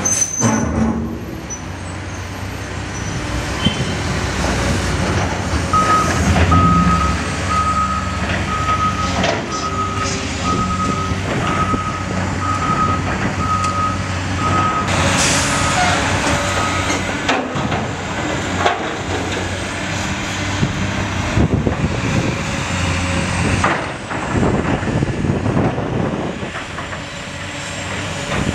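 Heavy diesel construction machinery, a Cat wheel loader, running at work, with a backup alarm beeping evenly, about one and a half beeps a second, for roughly ten seconds in the middle, and a brief hiss partway through.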